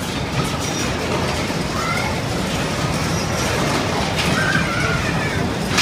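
Bumper cars running around a dodgem rink: a steady rumble of cars and wheels on the floor, with short high squeals now and then and a sharp knock of a bump near the end.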